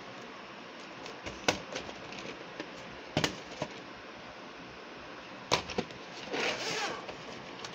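VHS tapes in plastic cases being handled: a few sharp clicks and knocks as tapes are pulled from the shelf and set down, and a short scraping slide about six seconds in.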